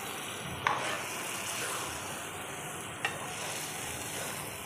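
Chicken, black-eyed peas and masala sizzling in a steel pot as a metal ladle stirs them, with two sharp knocks of the ladle against the pot, under a second in and again about three seconds in.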